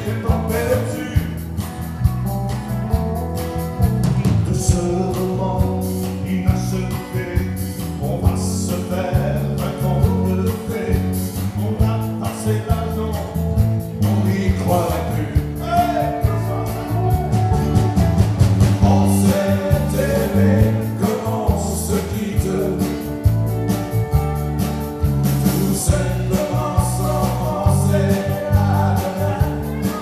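A live band playing, with electric guitars and drums and a man singing lead.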